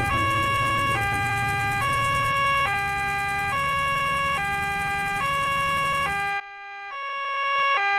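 Cartoon ambulance's two-tone siren, alternating evenly between a high and a low note, each held just under a second, over a low engine rumble. The rumble cuts out about six seconds in, and the siren drops away, then grows louder again near the end.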